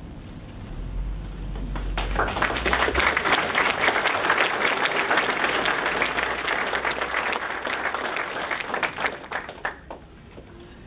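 Audience applauding, building up about two seconds in and dying away near the end.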